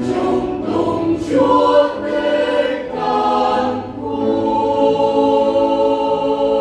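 Mixed choir singing a Vietnamese hymn in parts with piano accompaniment, settling into a long held closing chord about four seconds in.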